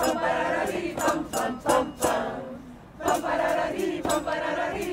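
A mixed crowd of men and women singing together in unison, unaccompanied, as a choir of janeiras (Portuguese New Year carols). The singing breaks off briefly about halfway and resumes.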